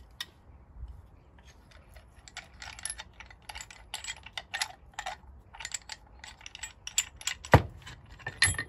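Brake caliper wind-back tool being turned to wind the caliper piston fully in, ready for new pads: a long run of small clicks, with two louder knocks near the end.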